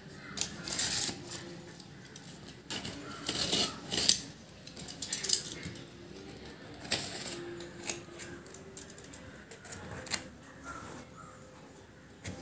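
Snap-off utility knife slicing through the plastic wrap and packing tape on a cardboard box, in irregular scraping strokes, with cardboard flaps being pulled open and rustling.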